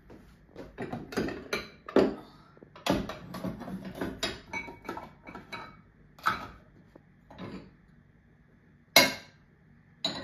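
Crockery clinking and knocking as cups and bowls are moved about on a kitchen shelf: a busy run of clatter for several seconds, then two single sharp knocks near the end.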